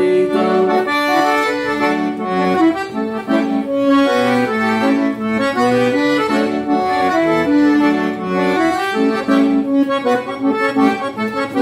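Piano accordion playing an instrumental passage: a melody on the treble keys over bass and chord accompaniment from the left-hand buttons.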